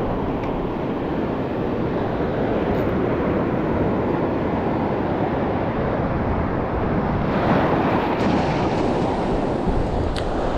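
Surf washing over a shallow reef shelf, with wind buffeting the microphone; a wave surges in about seven and a half seconds in.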